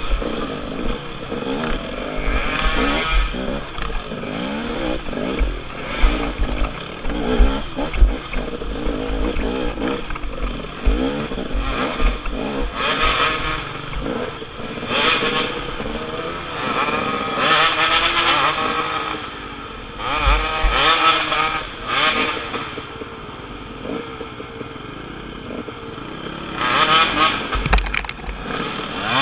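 Dirt bike engine heard from the rider's helmet, revving up and falling back again and again as the bike is ridden over rough, rocky trail, with several harder throttle surges and low irregular thumps from the bumps.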